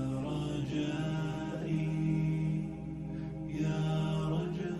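A man's voice chanting a Quran recitation in long held, slowly gliding melodic notes.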